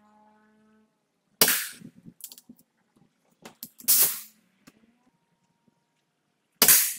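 Brocock Ghost pre-charged pneumatic air rifle firing three shots about two and a half seconds apart, each a sharp crack with a short fading tail, with small clicks between the shots.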